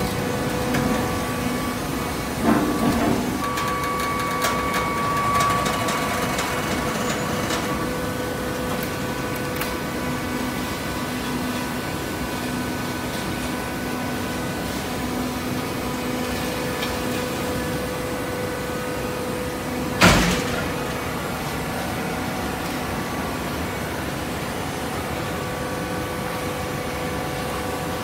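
Fully automatic horizontal hydraulic baler running, a steady machine hum with held tones. There is a short knock about two and a half seconds in and a single loud, sharp metallic bang about twenty seconds in.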